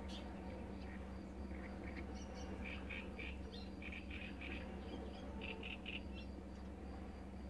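Common nightingale singing a phrase of short, quickly repeated notes, starting about a second and a half in and stopping about six seconds in.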